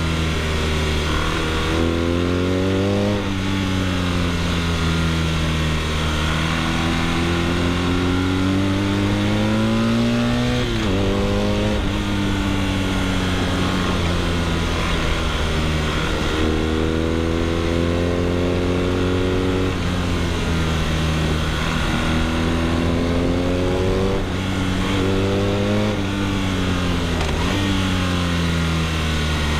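BMW R nineT's boxer twin through an Akrapovic exhaust, pulling hard through the gears. The engine note climbs in pitch, drops sharply at each shift, and at times falls away as the bike slows before pulling again.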